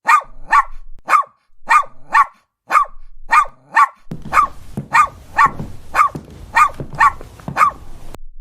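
A dog barking in a fast, even run of short barks, about two a second; from about halfway through the barks come over a rougher, noisier background.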